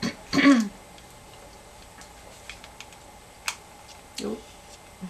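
Seashells clicking and clattering as they are handled and pressed into place on a canvas while being hot-glued. The clicks are scattered and sharp, with the clearest about three and a half seconds in. There is also a brief, louder sound about half a second in.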